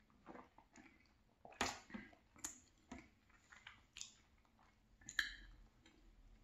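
Close-miked mouth sounds of drinking and eating: swallows of chocolate milk and chewing, heard as a string of short wet clicks and smacks, about eight in all. The loudest come about one and a half seconds in and about five seconds in.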